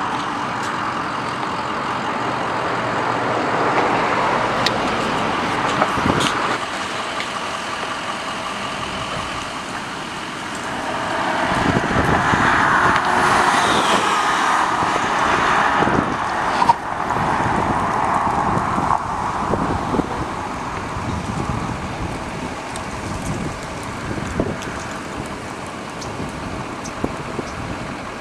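Road traffic: cars and a van driving past on the street, with the passing noise loudest from about twelve to seventeen seconds in.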